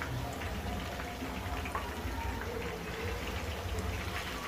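Marinated chicken pieces deep-frying in hot oil in a kadhai: a steady sizzle with many small crackles from the bubbling oil.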